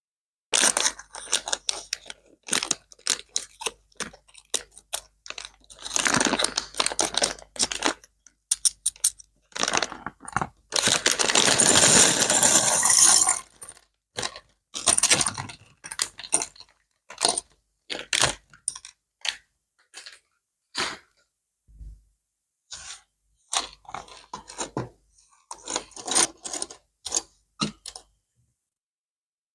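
Parts and packaging of a mechanical spider model kit being handled: a run of sharp clicks, taps and small rattles, with a longer stretch of packaging rustle about six seconds in and a louder, longer one about ten seconds in.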